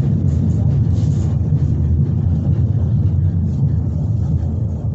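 Berlin S-Bahn class 485 electric train heard from on board: a steady low rumble of the wheels and running gear while it moves, easing off slightly near the end.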